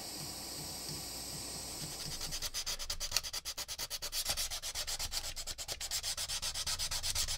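Steel saw blade being hand-sanded with sandpaper, in quick, even back-and-forth strokes, several a second, that start about two seconds in and grow louder. Before that, a steady hiss from a small handheld torch.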